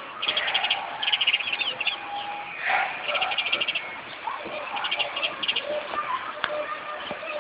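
House sparrow chirping: three bursts of fast, repeated high chirps, with a few short downward-sliding notes between them.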